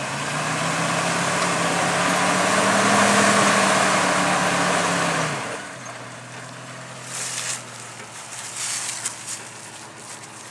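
Jeep engine revving up under load as the Jeep tries to crawl forward over a rock, easing back to a low idle after about five seconds. A few short crunching clicks follow, tyres and rock shifting.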